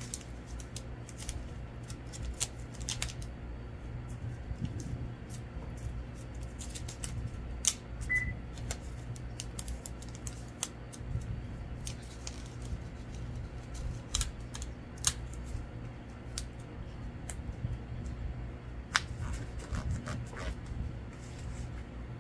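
Irregular light clicks, snips and paper rustles of hands working with paper cut-outs and stickers, over a steady low hum.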